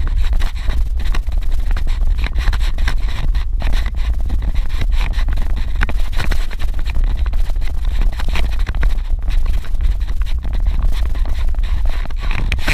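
Suzuki Jimny driving on a dirt road: a steady low rumble with constant crunching, scraping and knocking from the tyres on the rough surface.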